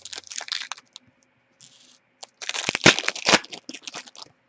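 A foil trading-card pack wrapper crinkling and tearing as the pack is opened and the cards are handled, in two bursts of crackling. The second burst, starting about two and a half seconds in, is the louder.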